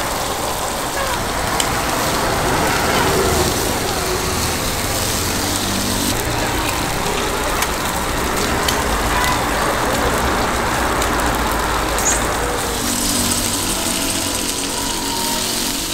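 Eggs and sausages sizzling on a flat-top griddle, a steady frying hiss with a few light clicks and a low rumble underneath that fades out near the end.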